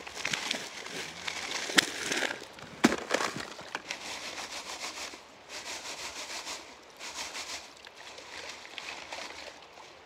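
Wet gravel and river stones poured from a plastic bucket into a classifier screen, rattling and clattering, with two sharp knocks of stone in the first three seconds. After that, hands scrape and rub the gravel back and forth over the screen to sift it into the bucket below, in repeated swells of scraping.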